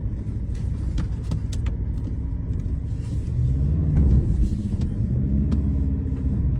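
A car driving over a rough, bumpy mountain road: a steady low rumble of engine and tyres with scattered knocks and rattles, and the engine pulling harder about three to four seconds in.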